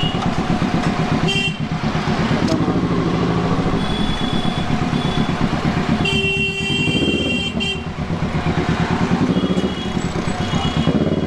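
Kawasaki Z650's parallel-twin engine running at low revs as the bike crawls through traffic. Horns honk several times over it, the longest blast about six seconds in.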